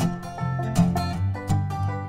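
Acoustic string band playing a bluegrass-style instrumental passage: quickly picked banjo and guitar notes over low bass notes.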